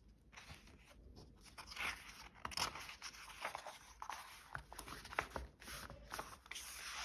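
Paper rustling and crinkling with scattered soft clicks: a picture book's pages being handled and turned.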